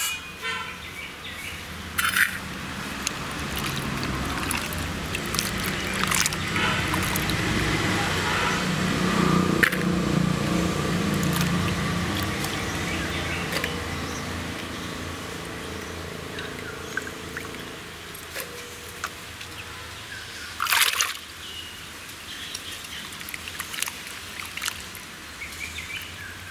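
Water splashing and trickling as cubes of elephant yam are handled in a water-filled clay pot. A low rumble swells and fades in the middle, loudest about ten seconds in, and a couple of sharp knocks sound near the start and about two-thirds through.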